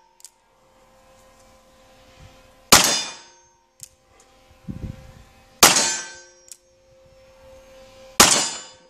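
Three shots from a single-action revolver, about three seconds apart, each leaving a metallic ring. About a second after each shot comes a light click as the hammer is cocked again with the thumb.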